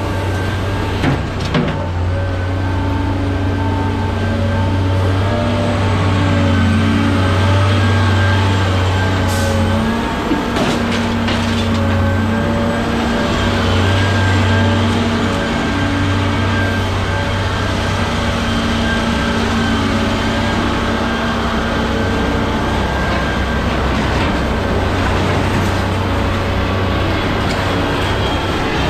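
Scrap material handler with an orange-peel grapple running steadily, a loud machine hum with a steady whine over it. A few sharp metal clanks come about a second in and again around ten seconds in.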